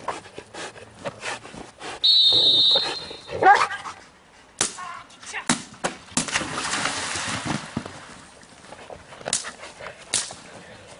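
Belgian Malinois doing bite work on a decoy in a padded bite suit: scuffling and sharp knocks as the dog hits and grips the suit, with dog whines and yips. A short, shrill whistle blast about two seconds in is the loudest sound.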